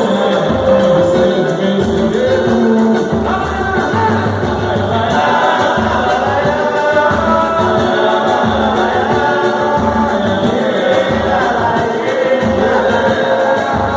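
Live samba group performing a song: several voices singing together over a steady low beat.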